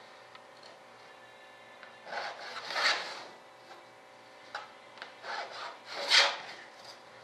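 Pencil scratching marking lines along a clear straightedge on a laid-up gear-door skin. Several short scratchy strokes start about two seconds in.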